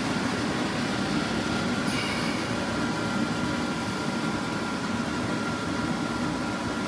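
Steady background hum of room ventilation, with a faint high whine held throughout and nothing else standing out.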